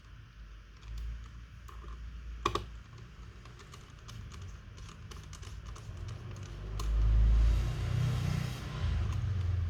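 Light clicks and taps from hands working on a laptop, with one sharper click about two and a half seconds in and louder handling and rustling near the end.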